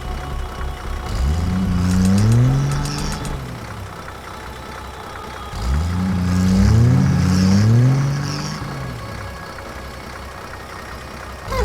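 Engine revving up twice, its pitch climbing in three steps each time as if shifting up through gears, with a faint high rattle over the revs and a low rumble between them.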